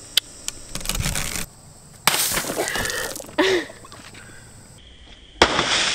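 A rubber-band-wrapped watermelon being stomped on with sneakers on asphalt, splitting and splattering its pulp. There are several separate sudden bursts of crunching and splashing noise.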